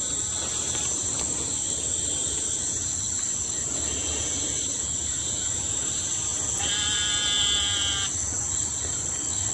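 Steady high-pitched insect chorus. About seven seconds in, a single animal call of even pitch cuts in for about a second and a half.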